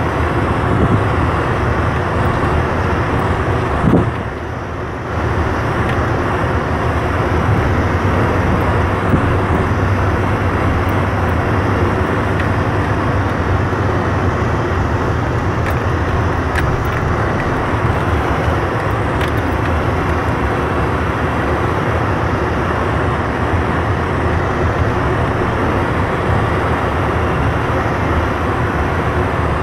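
Vehicle running slowly along a snow-covered dirt road, heard from inside the cab: steady engine hum and tyre noise. There is a knock about four seconds in, and then a brief drop in level.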